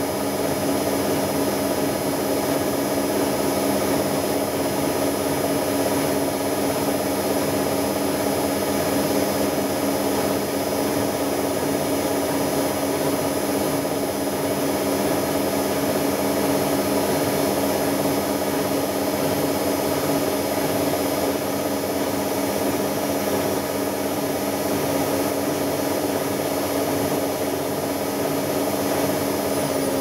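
Hoover Optima WMH148 washing machine in a spin-only cycle set to 1400 rpm, spinning at a steady high speed: a steady motor whine over the rush of the drum.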